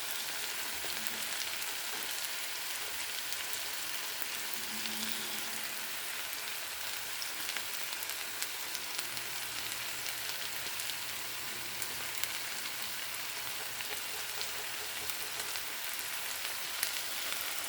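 Steady sizzling and bubbling of ground-turkey chili and a pot of boiling hot dogs on a stovetop, with faint scattered crackles and pops.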